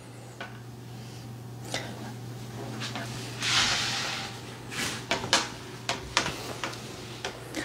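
Clicks and knocks from a hand-held shower head and its chrome fittings being handled, with one short rough scraping noise just past the middle, the loudest sound. A steady low hum runs underneath.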